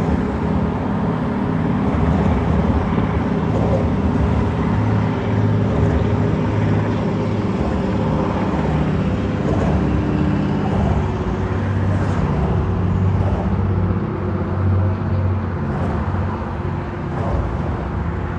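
City street traffic with a steady low rumble of vehicles and road noise, heard from a moving bicycle.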